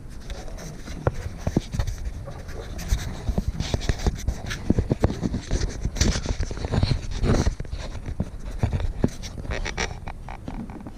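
Close handling noise: irregular knocks, clicks and scraping as the camera is moved and repositioned.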